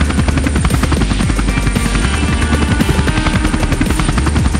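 Helicopter rotor sound effect, a fast, steady beating of blades, over background music.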